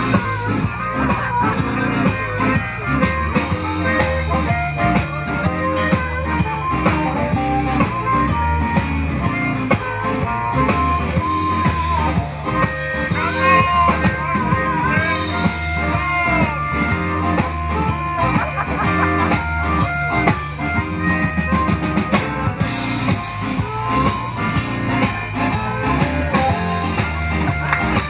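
Live blues band playing an instrumental stretch, a lead line of bending notes over bass and drums.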